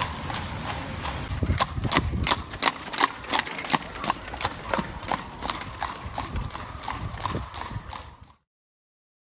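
Hooves of a carriage horse clip-clopping on cobblestones as a horse-drawn carriage goes by, several sharp strikes a second. The sound stops abruptly about eight seconds in.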